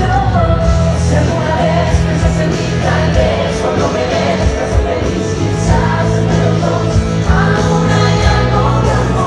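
Pop-rock song with a lead voice singing over a steady, heavy bass line.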